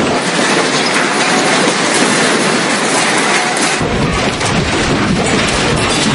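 Tsunami floodwater rushing through with debris grinding and crackling: a loud, continuous roar. The deep rumble underneath comes in about two-thirds of the way through.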